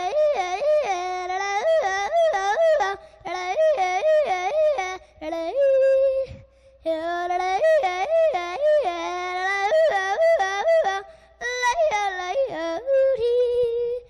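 A young girl yodeling into a microphone, her voice flipping quickly back and forth between a low and a high note in several phrases with short breaks, ending on a held note.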